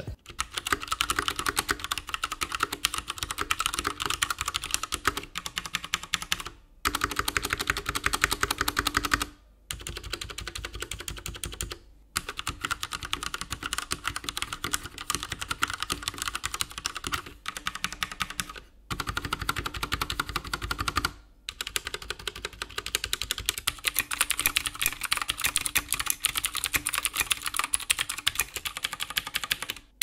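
Fast typing on an Akko x Ducky Zero 3087 tenkeyless mechanical keyboard with Cherry MX Red switches, a dense run of key clacks. It breaks off briefly about five times between takes.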